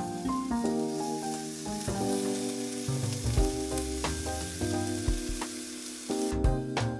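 Raw steak sizzling as it is laid on a hot grill grate. The sizzle drops away about six seconds in. Background music with a bass line plays throughout.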